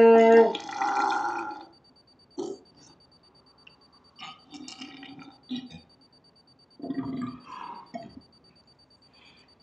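A man's long, pitched burp that cuts off about half a second in, trailing into a rougher, throaty rumble for about another second. After it come a few short, faint sounds.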